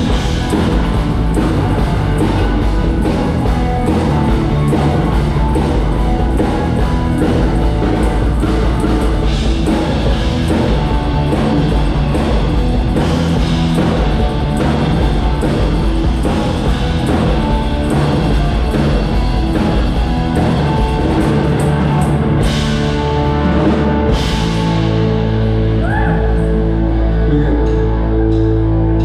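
Live rock band playing loud, with electric guitar and drum kit; in the last few seconds the playing settles into long held notes.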